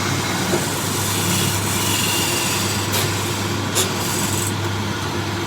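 Electric motor of a workshop power tool running steadily, with a constant hum and hiss. Two short clicks come about three and four seconds in.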